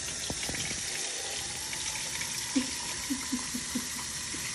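Kitchen faucet running steadily into a glass mason jar, with water pouring straight out through a crack in the jar's bottom and splashing onto a glass pot lid in the sink.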